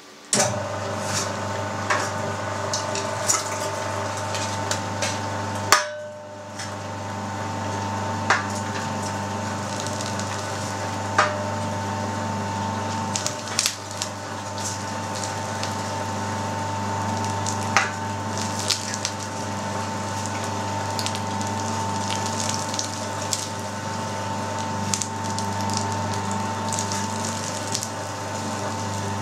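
Electric meat grinder running steadily, grinding blanched pork cheek through a fine 2 mm plate, with scattered clicks and knocks and a brief dip in the motor hum about six seconds in.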